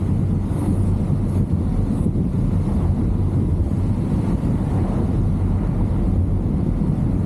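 2023 Chevrolet Camaro SS driving at a steady pace: a constant low rumble of its 6.2-litre V8 and road noise, without revving.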